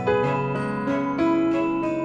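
Instrumental background music: a melody of pitched notes changing every few tenths of a second, with chime-like notes.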